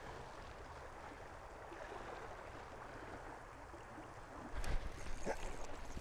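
Steady rushing of a shallow trout creek, with a few brief knocks and a rise in noise about three-quarters of the way through.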